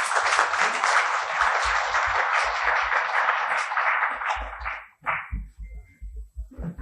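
Audience applauding, which fades out about five seconds in, followed by a few low thumps.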